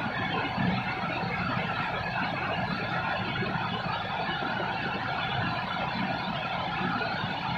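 Steady rain falling over a city, a constant hiss with a low rumble of traffic beneath it.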